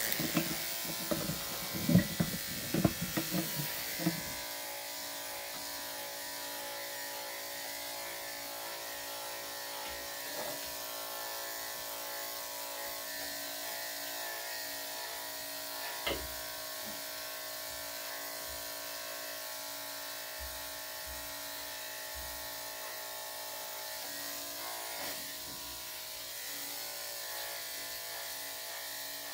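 Corded electric dog grooming clippers with a #5 blade running steadily through a Maltese's coat, a motor hum with several steady tones. In the first four seconds there are a few loud knocks and scuffles, and there are occasional faint clicks later.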